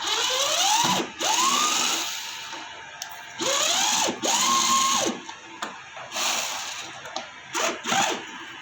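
Cordless electric screwdriver set to reverse, backing out screws. It makes about four runs of roughly a second each, every one whining up in pitch and then holding before it stops, then a few shorter runs near the end.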